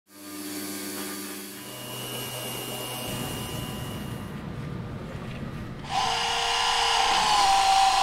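CNC milling machine cutting an aluminium part, with a steady whine and hum. About six seconds in, a louder pressure washer starts spraying water.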